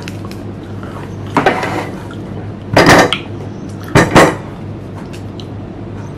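Clatter and scraping of kitchen utensils being handled and set down, a plastic vegetable peeler among them, in three short loud bursts about a second apart, the middle and last the loudest.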